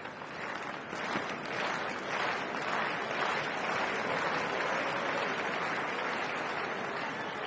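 Stadium tennis crowd applauding, building over the first second or so and then holding steady.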